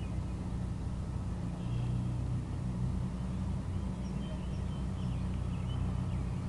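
Light propeller plane taking off, heard from a distance as a steady low engine drone.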